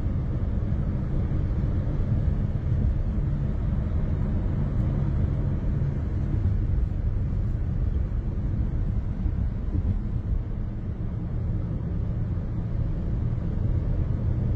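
Steady low rumble of road noise heard from inside a car's cabin while driving at freeway speed.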